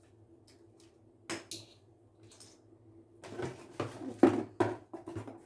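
A click about a second in, then a run of knocks and rattles as a hair straightener and its packaging are handled and set down, loudest about four seconds in.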